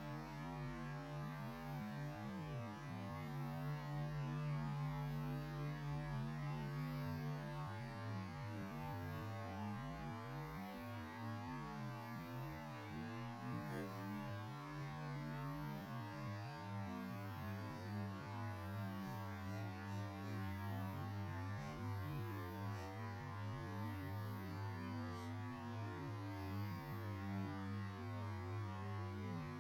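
Low, steady droning hum with a wavering, smeared texture above it, the pitched-down sound of a slow-motion recording; its low tones shift in pitch about halfway through.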